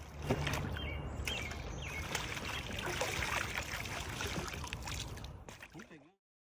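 Double-bladed kayak paddle strokes splashing and dripping in river water, with water lapping around the hull over a low steady rumble. The sound fades out about six seconds in.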